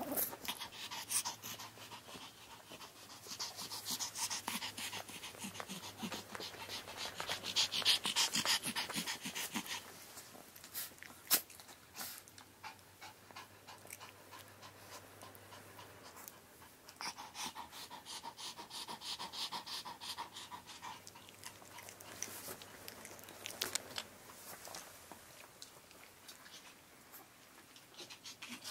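Chihuahua panting in quick, rhythmic breaths, in two long bouts: one at the start and one a little past halfway. A faint steady hum from an electric fan runs underneath.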